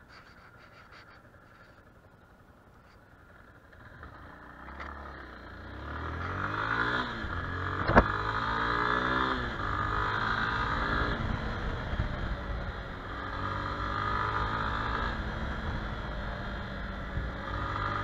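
Yamaha XTZ Ténéré 250's single-cylinder engine pulling away, its pitch rising and falling through the gear changes after a few quiet seconds. It then settles into a steady cruise at about 65 km/h with wind noise. A single sharp knock comes about eight seconds in.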